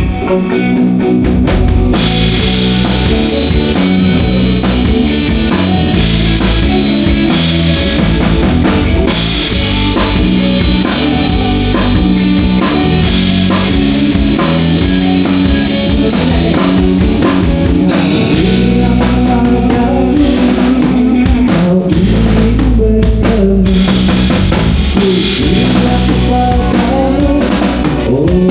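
Live band playing during a sound check: drum kit with bass drum and cymbals, bass and electric guitar. The cymbals come in about two seconds in.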